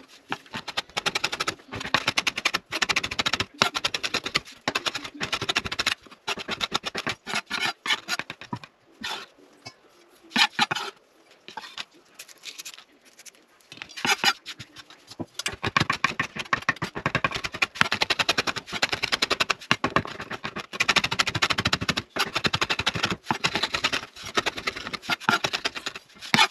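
Kitchen knife chopping fresh thyme and rosemary finely on a wooden cutting board: quick runs of sharp knocks on the board, with short breaks and a longer pause around the middle.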